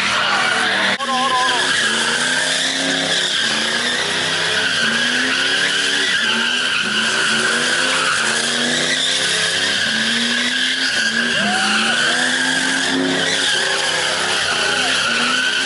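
A car doing donuts: its tyres squeal continuously while its engine revs rise and fall over and over.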